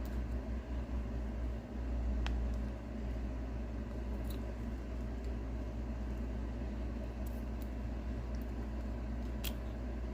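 Steady low hum of room background noise, like a fan or air conditioner running, with a few faint light clicks of small plastic parts being handled.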